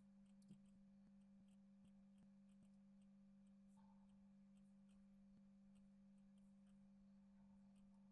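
Near silence: a faint steady low hum of the recording's background, with a few faint clicks, one slightly louder about half a second in.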